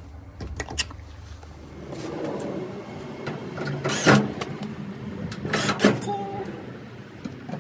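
Clacks and knocks of a Samsung electric dryer's metal panels and parts being handled and fitted back together, with a few sharp strikes, the loudest about four seconds in.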